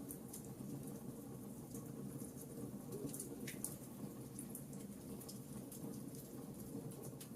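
Wood campfire crackling and popping: irregular sharp snaps, several a second, a few louder ones about halfway through, over a low steady rush from the burning fire.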